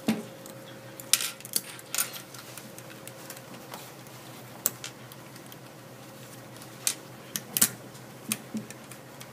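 Plastic snap-together circuit kit pieces clicking as they are pressed onto a plastic base grid: about ten sharp, irregular clicks over a faint steady hum.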